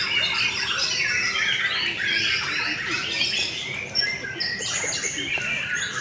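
Many caged white-rumped shamas singing at once, a dense tangle of overlapping whistles, trills and chatter, with one brief sharp click about four seconds in.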